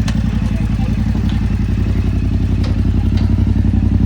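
Parallel-twin adventure motorcycle engine idling steadily, with a few light clicks.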